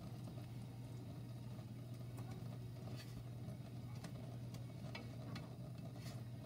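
Quiet kitchen sound: a steady low hum with faint, scattered crackles from quesadillas frying in a pan.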